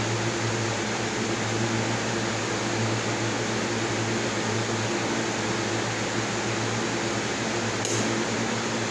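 A steady low hum with hiss over it, unchanging throughout, with one faint tick near the end.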